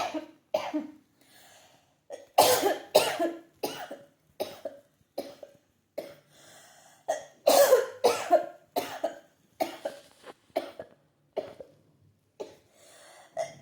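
A woman coughing hard in repeated fits, several short, harsh coughs in each burst with brief gaps between, from a cold she caught from the car's chilly air.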